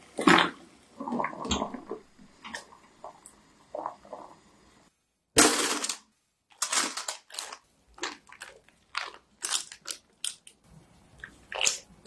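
Close-up food-prep handling sounds: crisp rustles, crinkles and light taps as cooked potato and carrot pieces are laid into a foil-lined air fryer basket, with a louder burst of rustling about five seconds in. Soft wet handling sounds come near the end as marinated lamb chops go in.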